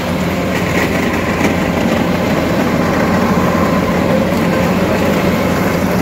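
Kubota combine harvester running steadily while its unloading auger pours threshed grain into a steel trolley, the engine and auger making a constant, even machine noise.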